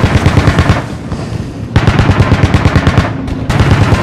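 Automatic anti-aircraft gun firing in three bursts of rapid shots, about ten a second, with short pauses between them.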